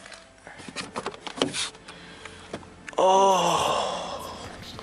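Small clicks and knocks of a car's interior door handle and door being opened. About three seconds in comes a short, loud voiced groan, over a rush of noise that slowly fades as the door swings open.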